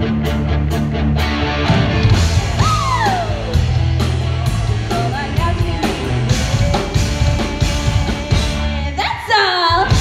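Live rock band playing electric guitars, bass and drum kit, with a woman singing. Near the end the band drops out briefly under a high, sliding note.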